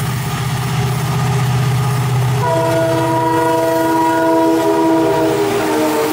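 EMD diesel locomotive passing close at speed, its engine drone giving way about two and a half seconds in to a long multi-tone air horn blast lasting about three seconds, which drops slightly in pitch near the end as it goes by.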